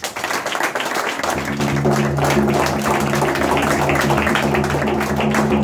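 A small group of people applauding. Background music with sustained low notes comes in underneath about a second in.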